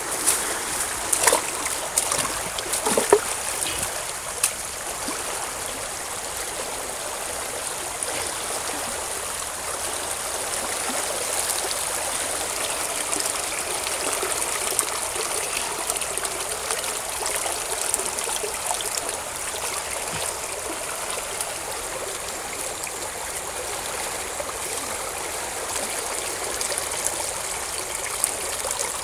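Water trickling and splashing as a bowl of grubs is rinsed in a shallow stream, water pouring out over the bowl's rim. A few sharp knocks sound in the first few seconds.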